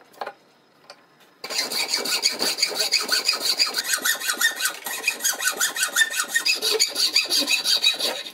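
Hacksaw cutting through a clamped block of very dense ebony stacked with liners: fast, even back-and-forth scraping strokes that start about a second and a half in.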